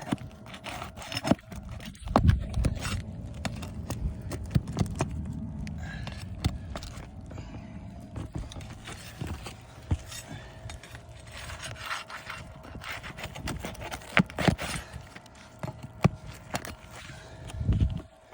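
Flat pry bar scraping and knocking under asphalt roof shingles, working the sealant strip loose between courses, with irregular sharp clicks and a few louder knocks.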